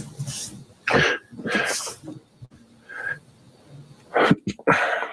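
A person making a string of short, sharp throat noises, about five of them, spaced out and bunched closer together near the end.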